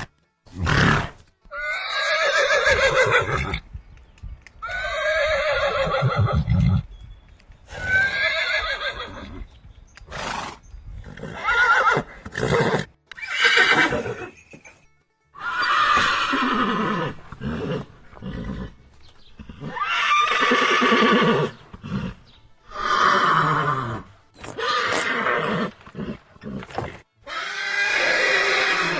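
Horses neighing, about a dozen separate whinnies of one to two seconds each, each with a quavering pitch that falls away at the end.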